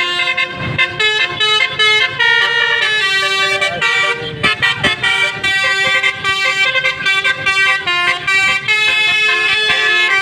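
Indonesian 'telolet' bus horn: a multi-tone musical air horn playing a run of changing notes in chords, sounding almost without a break.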